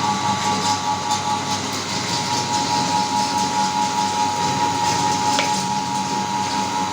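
Meat grinder running steadily as it grinds Oreo cookies: a constant whine with a low hum underneath and faint scattered crackles.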